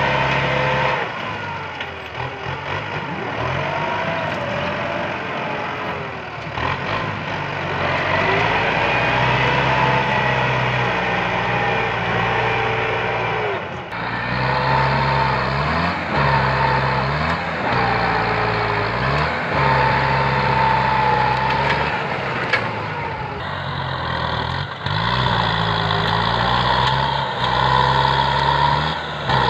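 Bulldozer's diesel engine working under changing load, its pitch dipping and recovering every couple of seconds, with a high whine running over it.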